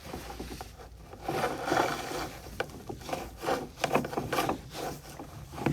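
An inspection camera and its cable rubbing and scraping along the inside of a PVC dryer vent pipe as it is pushed through, in uneven strokes. The first second or so is quieter.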